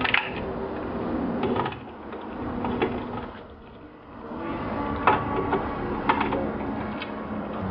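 Small tool working the bolts out of a 1970–81 Camaro/Trans Am instrument cluster: mechanical clicking and turning, with a few sharp metal knocks, the loudest about five seconds in.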